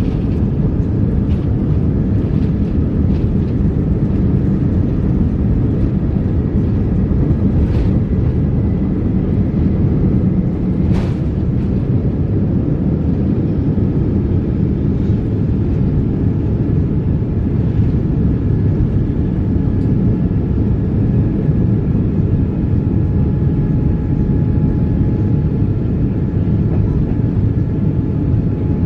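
Jet airliner takeoff heard from inside the cabin: a steady, loud engine and runway rumble with a faint steady whine over it as the plane rolls and climbs out.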